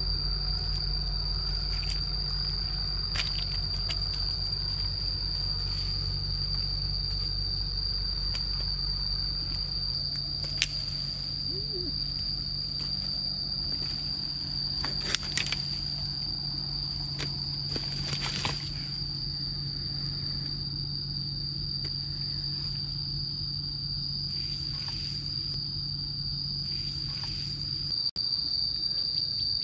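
Steady high-pitched insect chirring over a low rumble, with a few sharp clicks and scuffs scattered through; the sound breaks off for an instant near the end.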